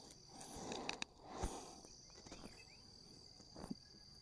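Faint, steady, high-pitched chirring of insects, with a few soft clicks and knocks.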